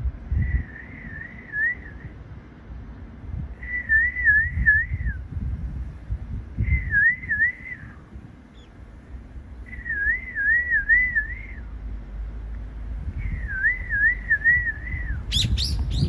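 Brown-eared bulbul calling: a short whistled phrase of three or four quick up-and-down notes, repeated five times about every three seconds, over a low outdoor rumble. A few sharp clicks near the end.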